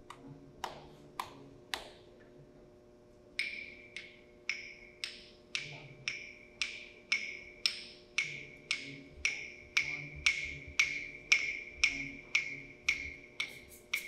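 Hand-held wood block knocked: a few spaced strikes, then a steady beat of about two strikes a second from about three seconds in.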